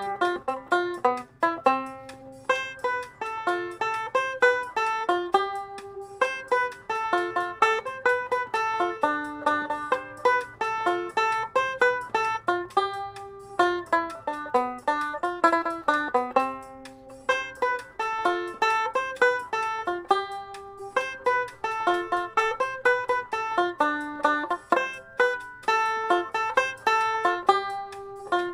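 Ome tenor banjo picked solo, playing a quick melody of short, evenly paced notes, with brief dips between phrases.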